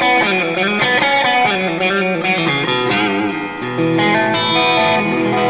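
A 2016 Mexican-made Fender Stratocaster Deluxe Roadhouse electric guitar is played on its middle pickup with the S-1 switch on, giving a bright tone. It plays a quick lead phrase with bent notes, then a chord is left ringing from a little past halfway.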